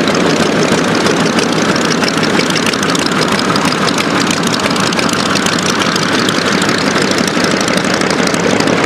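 Original WWII Sakae 31 14-cylinder twin-row radial engine of an A6M5 Zero running steadily at low, taxiing power, propeller turning, with a fast, even pulsing.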